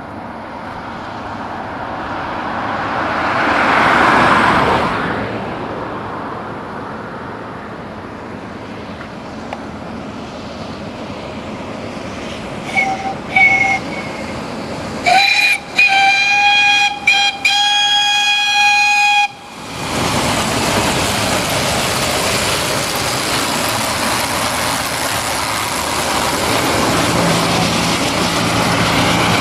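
A steam truck passing by, its noise swelling and fading in the first few seconds. Then its steam whistle: two short toots, followed by a blast of about four seconds broken by a few brief gaps. After that, a steady rushing noise.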